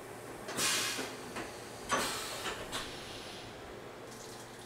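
A short burst of hissing air from the CNC vertical mill about half a second in, followed a second or so later by several sharp clicks and clacks.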